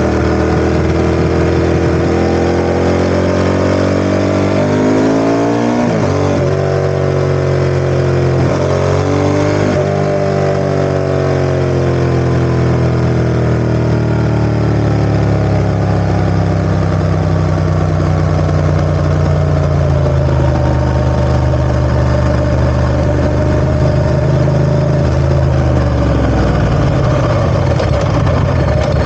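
Ducati ST4S 90-degree V-twin engine running under load. Its pitch rises and drops sharply twice in the first ten seconds, then sinks slowly and holds a steady note, with a shift in tone near the end.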